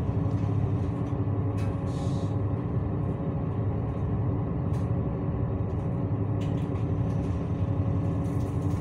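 A ship's engine running steadily: a low, even drone of constant pitch, with a few faint clicks.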